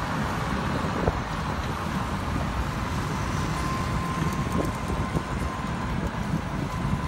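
Steady road traffic noise from cars circling the roundabout, heard from a moving open rickshaw, with a faint steady whine.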